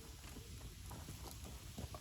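Wood campfire burning, with scattered small crackles and pops over a low steady rumble.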